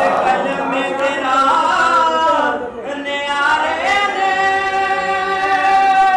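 Several voices singing together without instruments, a devotional chant. The melody moves in held notes, ending on one long sustained note in the second half.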